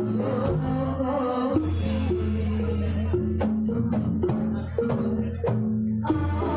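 Javanese gamelan-style ensemble playing a tune live: a melody of struck notes moving step by step over a steady low tone, with frequent drum strokes.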